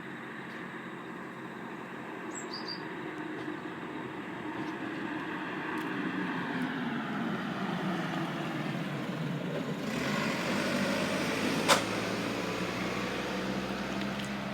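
A vehicle passing by, growing louder and then dropping in pitch as it goes past, with a single sharp click near the end.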